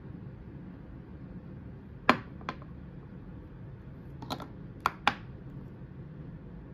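About six sharp clicks and taps from a glass perfume bottle and its black cap being handled and the cap fitted back over the gold atomizer. There are two about two seconds in, the first the loudest, then a quick cluster of four a couple of seconds later.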